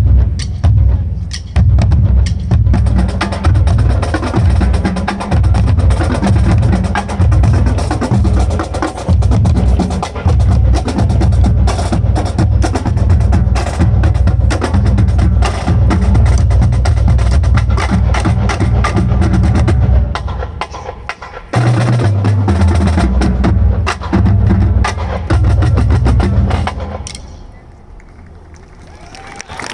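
Marching band drumline playing a loud percussion passage: pounding bass drums, rapid snare strokes and sharp wood-block clicks. It breaks off briefly about 20 seconds in, resumes, then stops about 27 seconds in.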